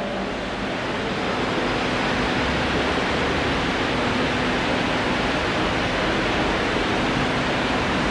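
Steady, even hiss-like background noise with a faint low hum.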